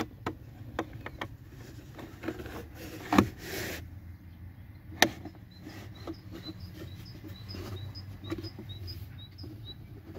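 Plastic and felt-lined interior trim of a VW Passat B8's passenger footwell being handled and pressed into place: scattered light clicks and knocks, a louder knock with a brief rub about three seconds in, and a sharp click about five seconds in.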